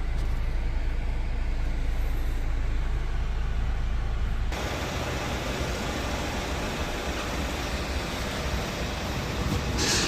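Hyundai Santa Fe's 2.0-litre diesel engine running steadily. The sound changes abruptly about four and a half seconds in, and there is a brief hiss near the end.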